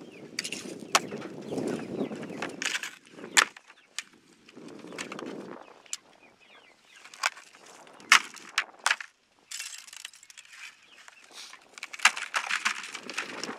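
Frozen plastic gravity chicken waterer being turned over and worked to free its ice: a series of sharp, irregular cracks and knocks from ice and plastic, with handling rustle in between.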